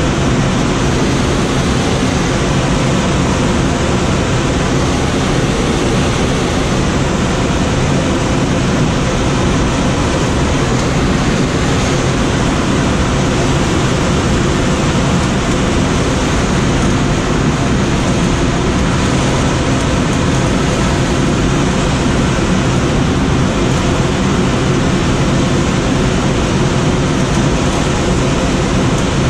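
Steady rush of airflow over a Schweizer SGS 2-32 glider in soaring flight, an even noise with no engine.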